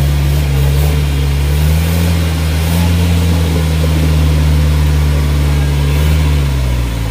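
Off-road vehicle's engine running at raised revs, held steady for several seconds, then easing off near the end.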